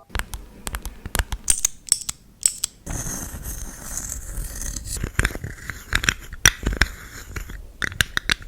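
Close-miked ASMR sounds: sharp taps and clicks, with a stretch of continuous crackly scratching in the middle.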